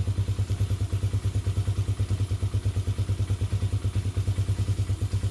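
Hawk 250 motorcycle's single-cylinder four-stroke engine idling steadily, an even putting with no revving.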